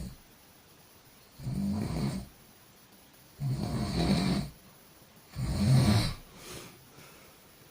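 A person snoring heavily: three loud, rough snores about two seconds apart, each lasting about a second, then a fainter short snort near the end.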